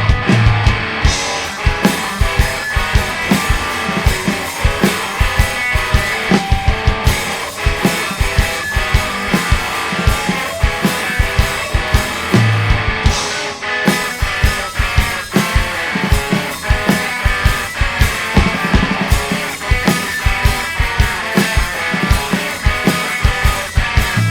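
A live rock band playing an instrumental passage: electric guitars over a drum kit with fast, busy drum hits.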